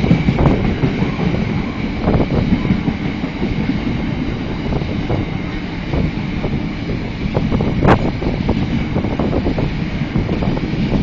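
Oil train of tank wagons rolling past, a steady rumble with wheels clattering and knocking over the rail joints and one sharp clank about eight seconds in.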